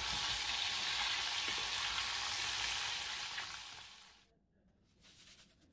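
Battered chicken pieces deep-frying in a pot of hot oil: a steady sizzle that fades out about four seconds in, leaving only faint light ticks.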